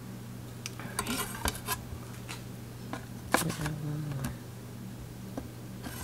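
Light clicks and clinks of dishes and utensils handled on a kitchen counter: a cluster of small clinks about a second in and a sharper knock a little after three seconds, with a few single ticks between. A steady low hum runs underneath.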